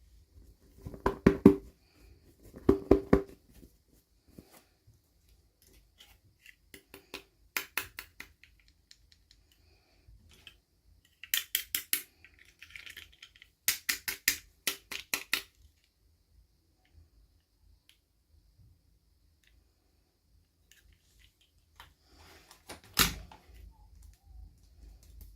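Small hard plastic pieces being handled and unpacked: bursts of quick sharp clicks and rattles, with quiet gaps between them and one louder click near the end.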